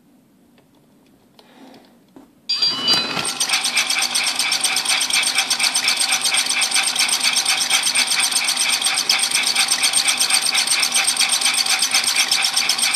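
Battery-operated Trackmaster motorized Toby toy engine switching on about two and a half seconds in, its small electric motor and plastic gears whirring steadily with a fast, even rattle and a high whine.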